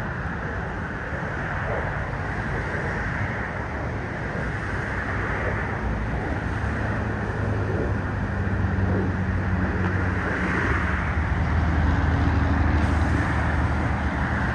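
Steady road traffic noise, with a vehicle engine's low rumble growing louder in the second half and peaking near the end.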